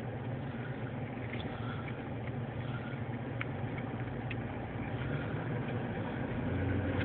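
Car engine idling with a steady low hum and a few faint ticks; the hum swells slightly near the end.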